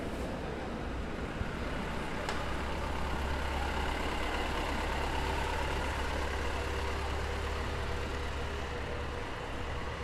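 A city bus engine running with a steady low hum as the bus moves through the station, growing a little louder in the middle and easing near the end. There is one sharp click about two seconds in.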